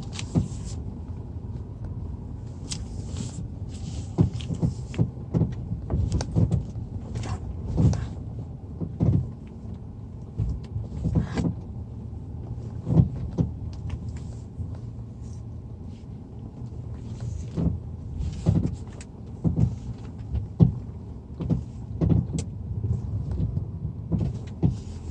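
A car's suspension knocking as it drives over uneven road: irregular sharp knocks, some in quick clusters, over a steady low road rumble.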